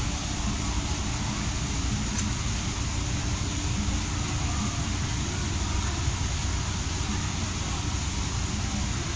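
Steady outdoor rumble and hiss, with a faint low hum underneath and no distinct events.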